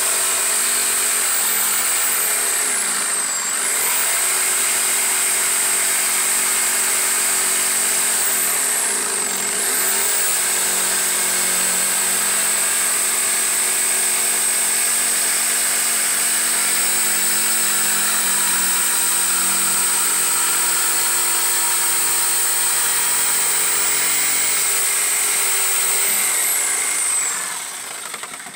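Ridgid corded jigsaw running steadily with a high whine as its blade cuts through a wooden panel. The motor speed dips briefly and picks up again twice in the first ten seconds. Near the end the saw winds down and stops.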